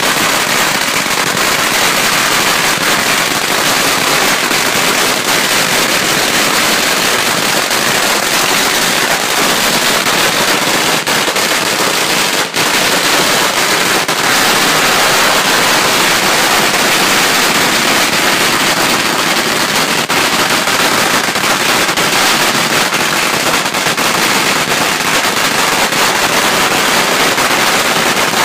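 A 100,000-shot firecracker string (ratelband) going off as one continuous, dense rattle of bangs, with only a momentary let-up about twelve seconds in.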